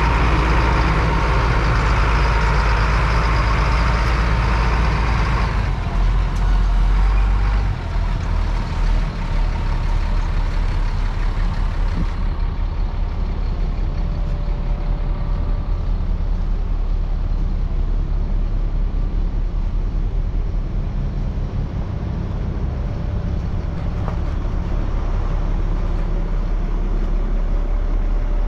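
A 2000 Chevrolet medium-duty rollback truck's engine idling steadily, a low, even rumble.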